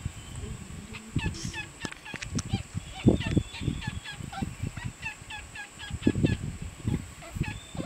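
Laysan albatross chick giving a run of short, falling squeaky calls, two or three a second, while it tugs dry needles into a nest. Irregular low rustles and bumps come from the material being pulled and handled.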